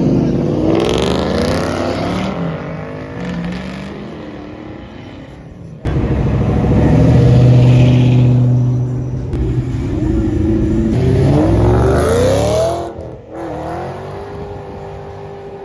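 Performance car engines accelerating hard and revving as cars pull out and drive past, the engine pitch rising and falling. The sound jumps abruptly to another car about six seconds in and again near the end.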